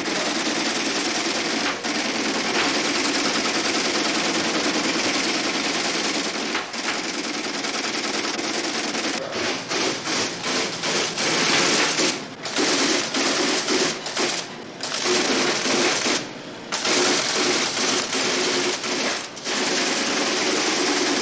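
Dense, rapid machine-like clatter. It runs unbroken for the first half, then breaks off in short gaps every second or two.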